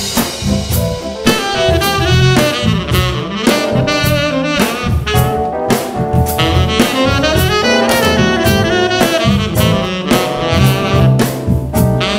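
Live jazz-funk band: a saxophone plays a melodic lead line over electric bass and a drum kit.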